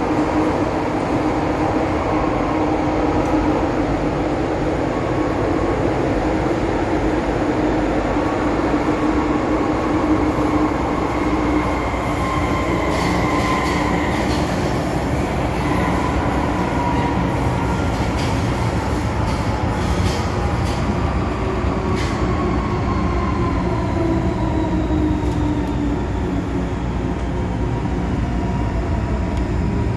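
MTR M-Train heard from inside the car while running underground: a steady rumble of wheels on rail, with the whine of the traction motors drifting in pitch. A cluster of short clicks comes around the middle, and a whine falls slowly in the second half.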